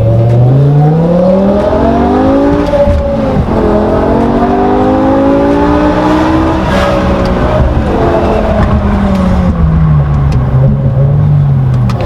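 Exhaust note of a BMW M6's V10 engine under acceleration: the pitch climbs for about two and a half seconds, breaks briefly, climbs again, then falls steadily over the last four seconds.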